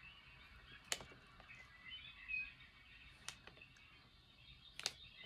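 Quiet room with three faint, sharp clicks spread through it, the small handling noises of brushwork at a table, and faint short high chirps in the background.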